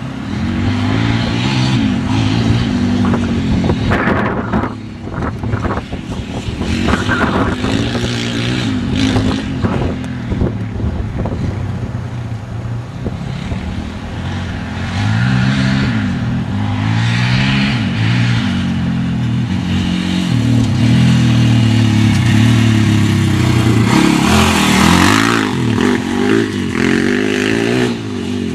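Polaris Outlaw 525 quad's KTM single-cylinder four-stroke engine revving up and down again and again as it is ridden across dirt, its pitch rising and falling with each burst of throttle.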